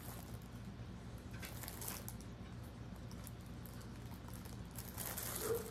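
Faint rustling and crinkling of plastic bags and cardboard as yarn is handled in a box, over a steady low hum.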